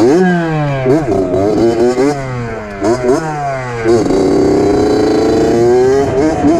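A 2003 Suzuki RM60 two-stroke mini dirt bike's engine is being ridden hard. The revs jump up and fall away about once a second for four strokes, then hold high for about two seconds, dip near the end and climb again.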